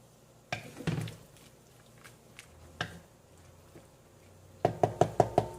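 A utensil tapping on cookware: a few scattered knocks, then a quick run of about six sharp taps near the end, with a brief ring after them.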